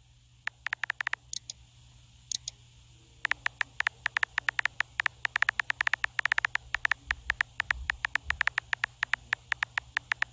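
Phone keyboard typing clicks as a message is typed out letter by letter: a short run of taps about half a second in, then a steady fast run of clicks, several a second, from about three seconds in.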